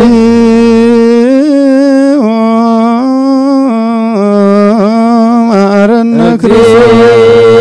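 Ethiopian Orthodox requiem chant: a solo voice sings long held notes with wavering, melismatic ornaments, close to the microphone. A lower steady tone sounds under it at the start and comes back near the end.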